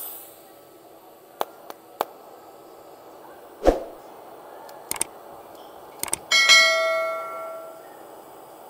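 Metal being handled on a work bench: a few light clicks, then several sharp knocks, and about two-thirds of the way through a piece of metal is struck and rings like a bell, fading over about a second and a half.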